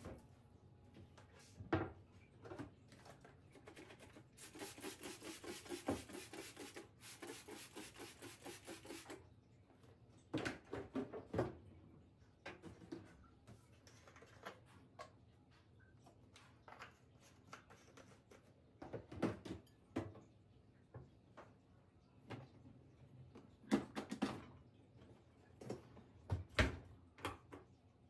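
Handling noises at an open dishwasher: scattered clicks and knocks of the detergent dispenser and plastic bottles, with a dense steady noise lasting about five seconds a few seconds in. The dishwasher door is knocked shut near the end.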